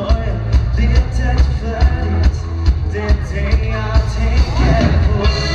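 Dansband playing live: a loud pop dance tune with a steady drum beat and heavy bass.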